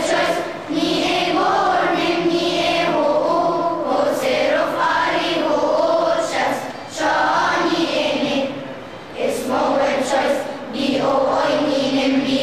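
A children's choir of boys and girls sings together in sustained phrases. Each phrase is broken by a short pause for breath.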